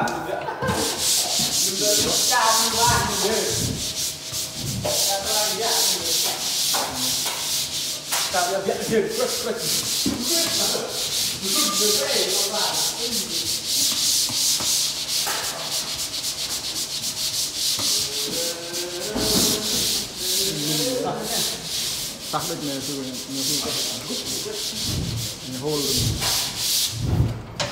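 A long-handled drywall finishing tool rubbing and scraping across drywall in quick repeated strokes, a continuous gritty hiss as joint compound is worked over the board.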